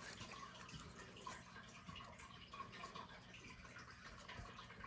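Near silence: faint room tone with a low hum and a few faint ticks.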